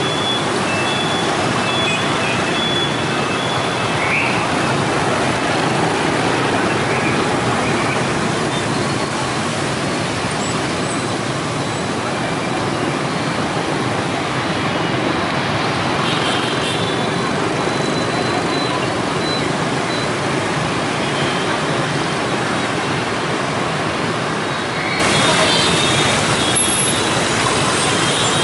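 Dense motorbike and scooter traffic streaming through an intersection: a steady wash of many small engines and tyres. About 25 seconds in it cuts to a louder, closer recording of the same traffic.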